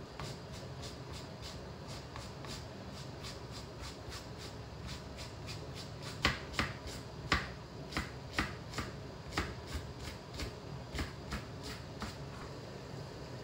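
Kitchen knife cutting a Japanese leek (negi) on a cutting board, the blade clicking against the board in a steady run of strokes, a few a second. The first strokes are light scoring cuts along the leek; from about six seconds in the strokes are louder chops as it is minced.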